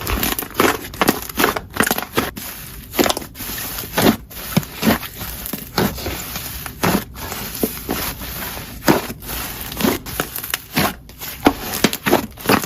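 Slime being squeezed and pressed, giving a run of irregular sharp pops and crackles, two or three a second.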